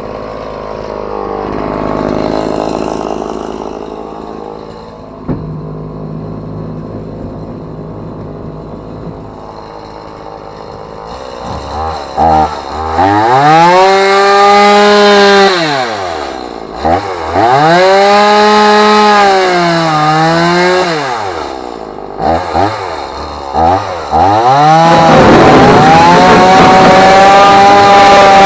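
Chainsaw engine running quietly at first, then revved up and held at full throttle twice, its pitch rising and falling, with a few short blips of the throttle. Near the end it settles into a steady full-throttle run at a lower pitch, as when the chain bites into the work.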